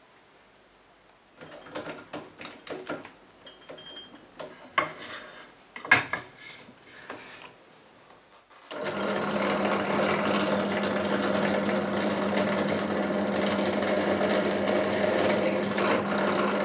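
Scattered clicks and knocks of tools and wood being handled on a workbench, then a bench drill press switched on and running steadily with a constant hum from about nine seconds in.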